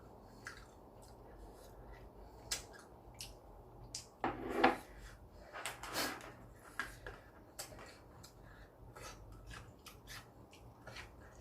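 Eating noises from a bowl of spicy ramen: scattered light clicks of utensils against the bowl, with two louder noisy sounds near the middle.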